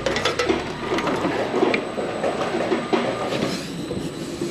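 Continuous irregular rattling and clicking of hard objects.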